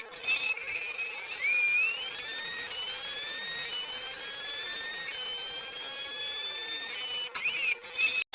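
A whining sound effect: a series of thin tones, each climbing slowly in pitch for a second or two, over a faint steady hum, like a jet engine spooling up.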